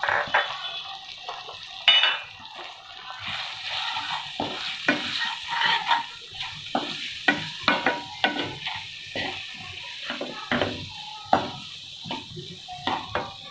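Wooden slotted spatula stirring and scraping a thick onion-tomato masala around a non-stick kadai, with many short uneven scrapes and knocks against the pan. Underneath, the masala sizzles in the oil as the freshly added spice powders fry, the sizzle growing stronger about three seconds in.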